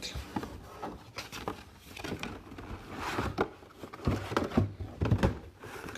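Hands opening a trading-card mini helmet box: irregular rustling and crinkling of cardboard and plastic packaging, with scattered clicks and taps.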